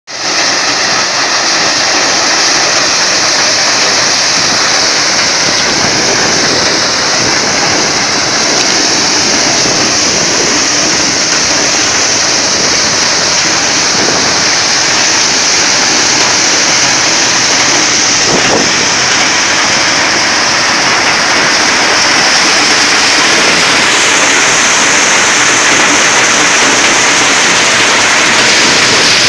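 Tractor-driven maize thresher running while maize is fed into it: a loud, steady rushing noise from the threshing drum and blower, with the tractor engine beneath.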